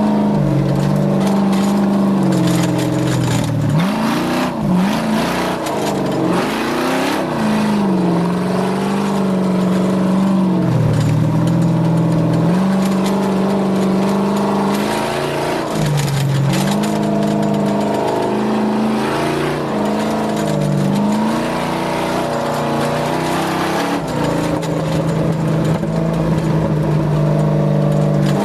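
Engine of an off-road desert race vehicle running hard, heard from a camera mounted on the vehicle. The revs dip sharply and climb back several times, around four to seven seconds in, near eleven seconds and near sixteen seconds, over a constant rushing noise.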